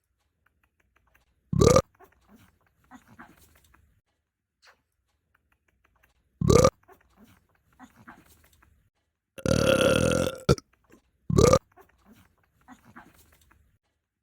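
Four loud burps with pauses between them: three short belches and one longer, drawn-out belch lasting about a second, about nine and a half seconds in.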